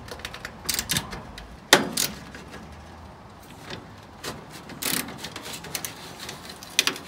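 Irregular metallic clicks and scrapes of a small wrench turning a rusted burner mounting screw inside a gas grill, with one sharp click about two seconds in.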